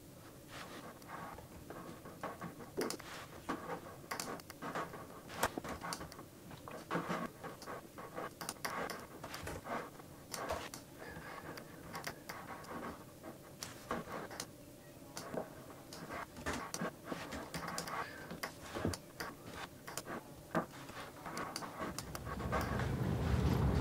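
Laptop keyboard and trackpad clicking irregularly as someone works at the computer. Near the end a low rumble rises.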